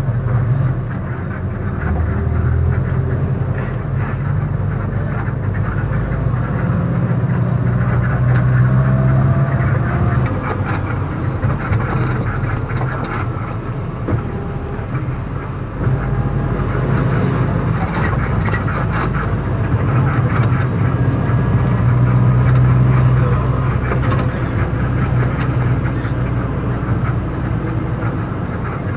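Engine drone and road noise heard from inside a moving vehicle: a steady low hum with a rushing haze above it that swells and eases a little as it drives along.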